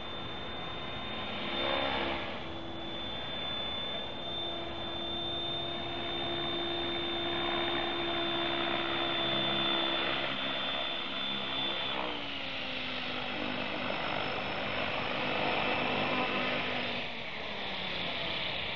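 Trim X-500 electric radio-controlled helicopter running: a steady high motor whine with a lower rotor hum over the whoosh of the spinning blades. About twelve seconds in the pitch glides down to a lower setting, and near the end it shifts again.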